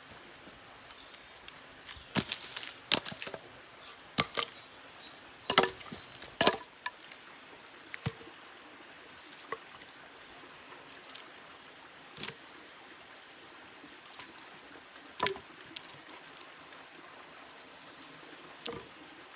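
Irregular sharp wooden knocks and cracks from sticks or wood being worked by hand, about a dozen in all. They come in a quick cluster in the first few seconds, then more sparsely.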